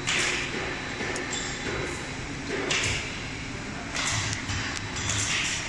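Veneer peeling machinery running: a steady din with irregular hissing bursts about once a second and a few low thuds in the second half.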